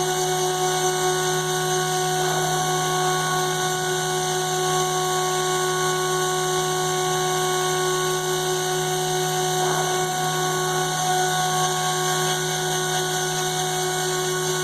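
CNC router spindle running at a constant speed, a steady whine with several fixed tones over a high hiss.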